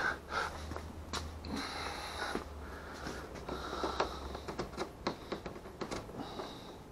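Hands handling gear and fittings on a plastic fishing kayak: scattered light clicks, taps and rustling, with a low hum that stops about four seconds in.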